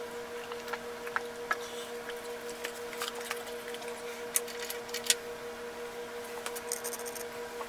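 Palette knife working thick oil paint on canvas: scattered short scrapes and light clicks, the sharpest about five seconds in, over a steady electrical hum.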